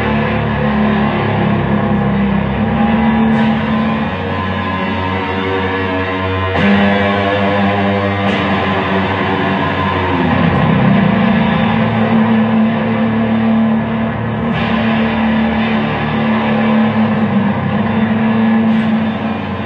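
Electric guitar played through a chain of effects pedals: a dense, sustained, distorted wash of layered droning notes, with fresh attacks now and then, the strongest about six and a half seconds in.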